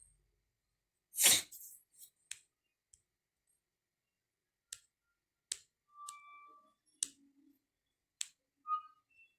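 Scattered sharp clicks and taps in a small room. A louder, longer knock comes about a second in, and two brief short tones come later.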